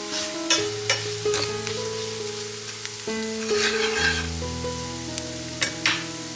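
Food sizzling in a frying pan as it is stirred, with several short sharp knocks and scrapes of the utensil against the pan. Light piano-like background music plays over it.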